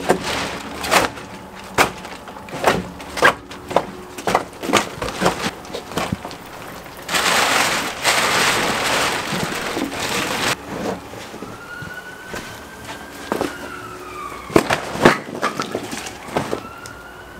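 Split firewood logs knocking and clunking as they are pulled from a woodpile and dropped into a jute log bag, with a burst of rustling from the tarpaulin cover about seven seconds in. From about twelve seconds on, a siren wails faintly in the background, rising and falling in pitch.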